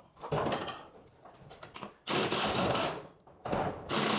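Four short bursts of scraping and rubbing as hardware or tools are handled, the loudest about two seconds in and another near the end.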